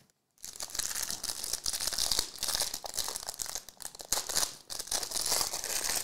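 Clear plastic wrapper crinkling and tearing as it is peeled off a trading card, a dense crackle of small sharp crinkles starting a moment in.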